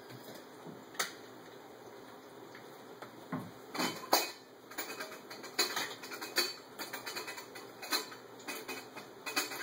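Small plates and utensils clinking and clattering in irregular knocks: one click about a second in, then frequent clatter from about four seconds on.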